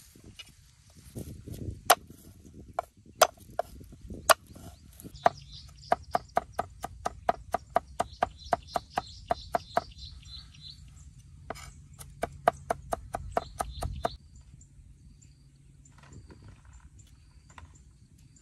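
Cleaver chopping garlic on a round wooden chopping board: three heavy single strikes about a second apart, then rapid even chopping at about four strokes a second, a short pause and a second run of chopping, after which it goes quiet.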